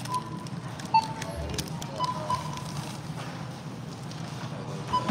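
Checkout-area ambience: a steady low hum with several short electronic beeps and a sharp knock about a second in.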